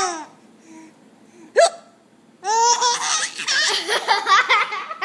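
A woman's single sharp hiccup about a second and a half in, followed a moment later by a baby's long run of laughter.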